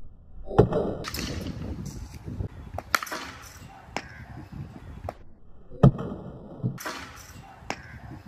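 Cricket bat striking a plastic ball twice, two sharp cracks about five seconds apart, the second the louder, with lighter knocks in between.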